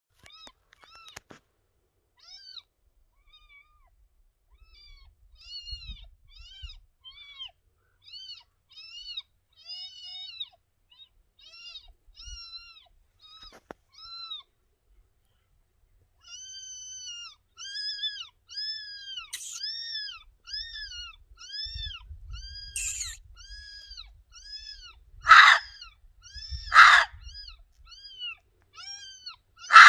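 Gray fox barking: a long series of short, high-pitched, arched yips, scattered at first and then coming steadily about one and a half a second. Near the end come three much louder, harsher barks.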